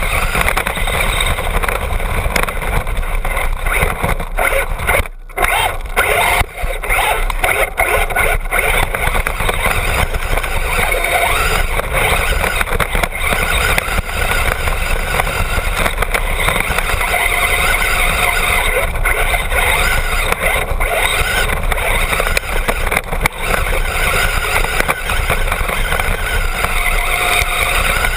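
Onboard sound of a Traxxas Bandit RC buggy with a brushless motor running flat out over dirt and gravel: a loud, continuous rush and rattle of motor, drivetrain and tyres on the ground, broken by many small knocks from bumps. There is a brief lull about five seconds in.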